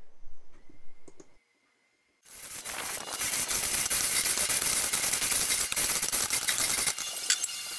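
Manual chain hoist being hauled by its hand chain: faint at first, then about two seconds in a dense, rapid clattering and clicking of chain running through the hoist starts and carries on.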